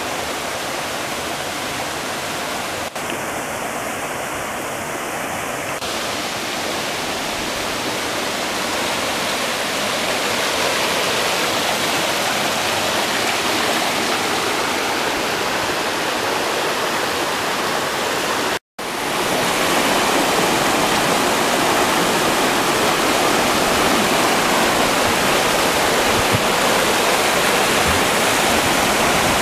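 River water rushing and splashing over rocks in small cascades, a steady full rush. It cuts out for a moment about two-thirds of the way through and comes back a little louder.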